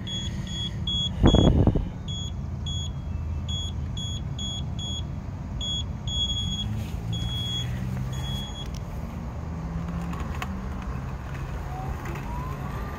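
Yoleny robotic lawn mower giving short, high electronic beeps at irregular spacing for about the first nine seconds, over the steady low hum of its motors. There is one loud low thump about a second and a half in.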